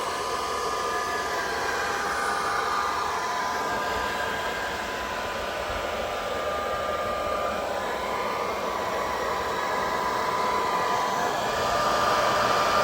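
Hand-held blow dryer running steadily with a whine, heating vinyl tint film on a tail light. It gets a little louder near the end.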